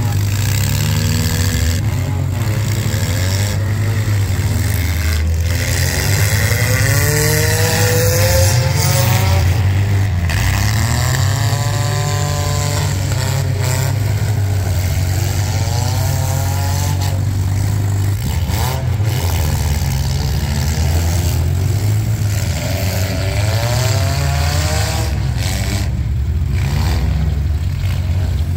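Several demolition-derby compact cars with their engines revving up and down over a steady low drone, with a few knocks from cars hitting each other.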